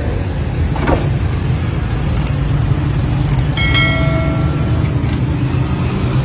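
Road traffic with engines running steadily, and a short high tone, like a horn, about halfway through.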